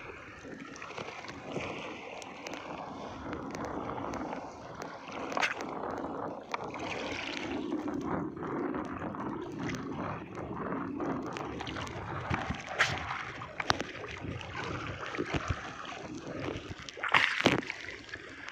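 Water splashing and sloshing, with scattered knocks and clicks. A louder cluster of splashes and knocks comes near the end.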